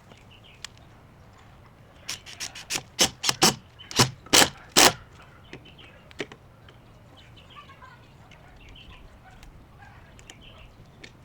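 A quick run of about a dozen sharp knocks over about three seconds, loudest near the end of the run, with birds chirping faintly in the background.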